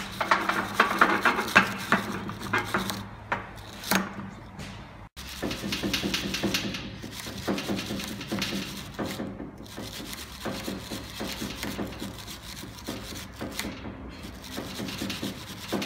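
Gloved hand scrubbing the metal housing of a Renault Duster transfer-case intermediate shaft clean with an abrasive, in rapid rasping strokes. The sound breaks off for an instant about five seconds in, then resumes.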